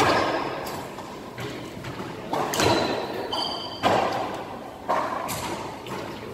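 Racquetball rally: a string of sharp cracks from racquet strikes and the ball hitting the walls and floor, about one or two a second, each echoing in the enclosed court. Brief sneaker squeaks on the hardwood floor a little after three seconds in.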